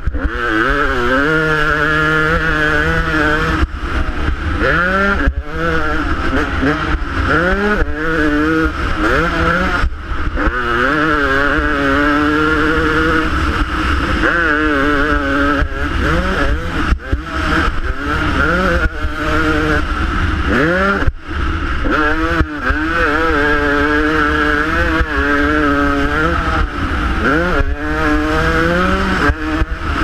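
Dirt bike engine revving hard while being ridden, its pitch climbing and falling back over and over as the throttle is opened and chopped. There are brief cut-outs between pulls, and steady wind rumble on the helmet-mounted camera.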